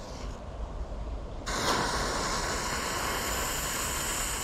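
A lit firecracker fuse catches about a second and a half in and hisses and sprays sparks steadily.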